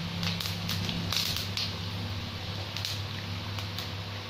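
Cumin seeds sizzling and crackling in hot oil in a pan, tempered for a tadka, with a steady low hum underneath.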